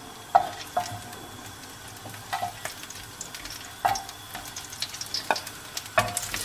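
Olive oil and garlic cloves sizzling in a frying pan, with several sharp clicks of a wooden spoon knocking against the plate and pan as crumbled sausage meat is pushed off into the oil. About six seconds in, the sizzle grows louder as the first pieces of sausage hit the hot oil.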